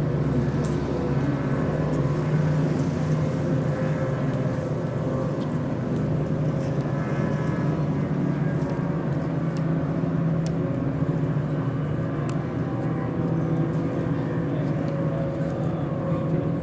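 Engines of racing offshore powerboats out on the water, a steady drone that holds nearly the same pitch throughout.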